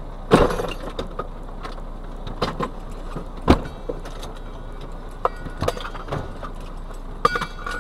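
Vehicle interior while driving: steady road noise with scattered knocks and rattles, a sharp knock about half a second in and another about three and a half seconds in, and a short cluster of clicks near the end.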